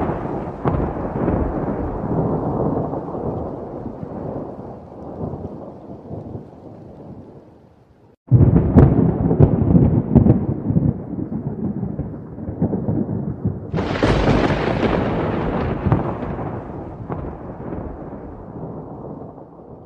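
Thunder rumbling: a long roll fading out, then a sudden loud clap about eight seconds in and another about fourteen seconds in, each rumbling and dying away slowly.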